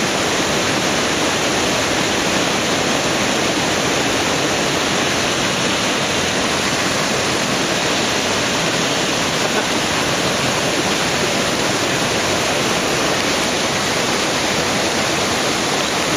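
Steady, even rush of fast-flowing water from a mountain stream tumbling over rocks.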